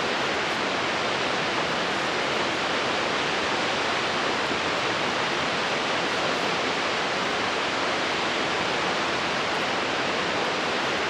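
Steady, unbroken rushing of a large waterfall pouring into the sea.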